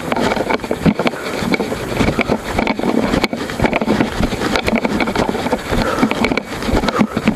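An action camera rattling and knocking in its broken mount on a moving mountain bike, with dense, irregular clatter from the rough trail and wind rushing over the microphone.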